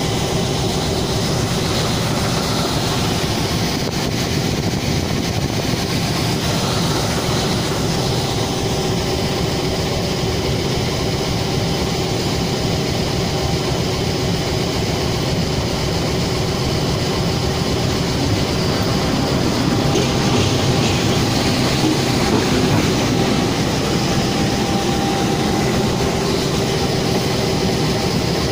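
Diesel locomotive engine running steadily, a constant heavy drone with a steady hum through it, getting slightly louder about twenty seconds in.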